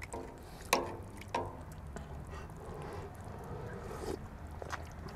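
Metal ladle knocking against the side of a cast-iron kazan twice in quick succession, each strike ringing briefly, as broth is scooped from the stew. About four seconds in comes a short slurp as the broth is sipped from the ladle.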